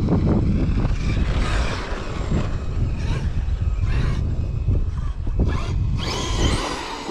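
Electric motor of an 8S brushless RC monster truck whining up in short bursts of throttle as it drives over dry grass, with a longer rising whine near the end. A steady low rumble of wind on the microphone runs underneath.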